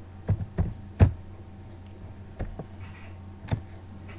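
Computer keyboard keys clicking as a short line of code is typed: about six sharp keystrokes at uneven spacing, the loudest about a second in, over a steady low hum.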